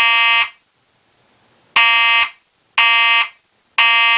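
Simplex 2901-9833 fire alarm horn sounding in code 3, the temporal-three evacuation pattern: a blast ends just after the start, then after a pause of about a second comes a group of three half-second blasts about a second apart.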